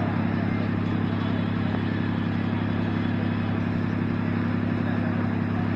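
A steady low mechanical hum at an even level, with no change through the pause.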